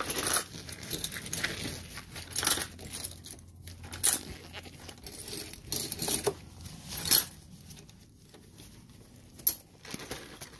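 Crinkling plastic being handled, in irregular crackles with scattered sharp clicks and taps, the loudest about four, seven and nine and a half seconds in.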